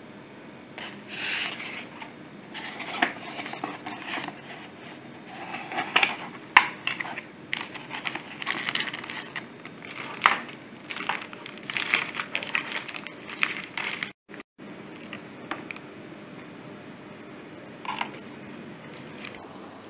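Cardboard packaging being opened and a plastic-bagged USB fax modem handled: irregular rustling, crinkling and scraping with a few sharp clicks. The handling is busiest in the first two-thirds and mostly quiet after that.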